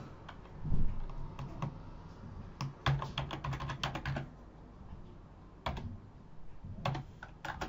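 Computer keyboard keys being typed as a password is entered: a quick run of keystrokes about three seconds in, then a few separate presses near the end.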